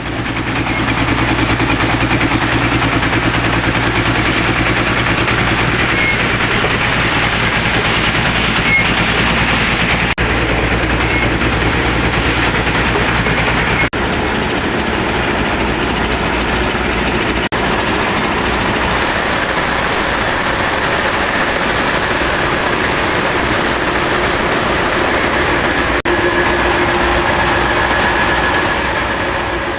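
Bauxite ore processing machinery running: a loud, steady mechanical din over a low hum, changing abruptly at a few points.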